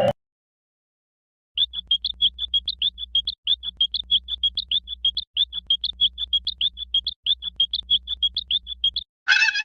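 Old cartoon sound effect: after a second and a half of silence, a fast, even train of short high chirps, about six a second, that sounds frog-like and runs for about seven seconds. A different, louder effect starts just before the end.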